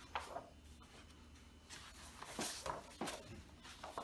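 Large paper pages of an oversized hardcover book being turned by hand: a couple of light taps at first, then a longer rustle with several sharp page flaps around the middle and another flap near the end.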